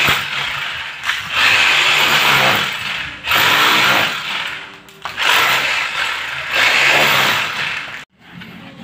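A corded power drill bores into a concrete wall in five runs of one to two seconds each, with short pauses between them. It is drilling holes for a split-type air conditioner's mounting bracket. The drilling cuts off abruptly near the end.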